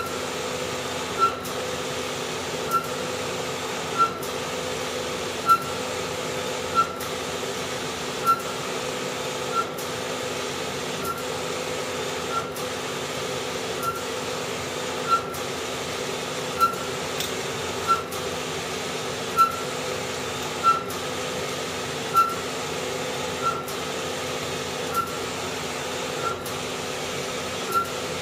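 Wide-format sublimation inkjet printer printing: a steady mechanical hum with a short click about every second and a half as the print head shuttles back and forth.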